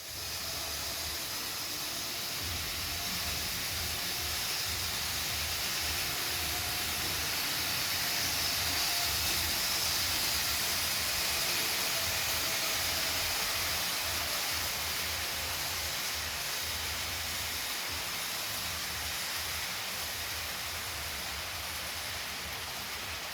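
Model train running: two Life-Like GP38-2 locomotives with pancake motors pulling a long string of about 70 cars, a steady hiss and rumble of wheels on the track with a faint motor whine. It grows a little louder around the middle and eases off toward the end.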